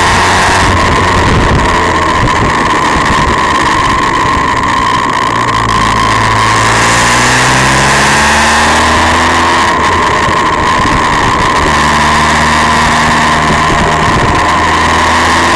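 Motorcycle engine running under way, its pitch climbing and dropping back several times as it goes through the gears, over heavy wind rush.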